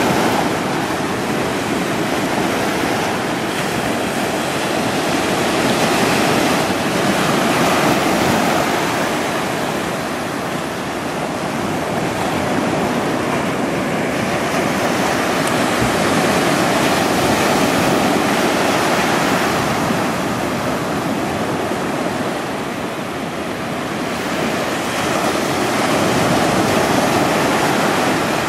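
Ocean surf washing onto a beach, a steady rush that swells and eases every several seconds.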